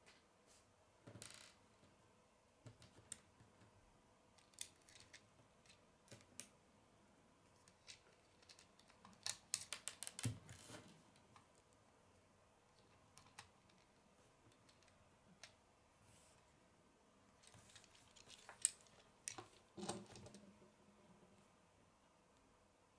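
Quiet clicks of plastic Lego bricks being handled and snapped together on a model car: scattered single clicks, with two busier runs of rattling clicks, about ten seconds in and again near the end. A duller knock near the end as the model is set down on the wooden tabletop.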